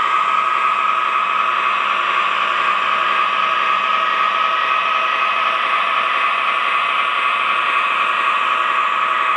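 MTH O gauge CSX ES44AC model diesel locomotive running on the track: a steady whir with a constant high hum that holds at one level throughout.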